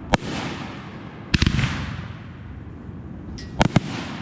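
Aerial shells from a Half Crazy consumer fireworks cake bursting in the sky: a sharp bang right at the start, another about a second and a half in, and two quick bangs near the end. Each bang trails off in a fading crackling hiss.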